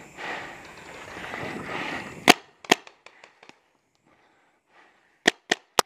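Magfed paintball markers firing: sharp single cracks about two seconds in and again soon after, then three quick cracks near the end. Before the first shot there is a rustling movement noise.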